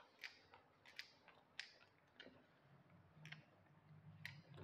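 Faint scattered taps and clicks, about five in four seconds, of a duster against a whiteboard as the board is wiped clean. A faint low hum comes in about halfway.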